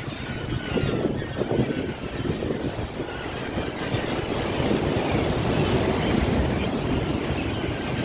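Sea waves washing on the shore, a steady rush that swells for a few seconds in the middle, with wind rumbling on the microphone.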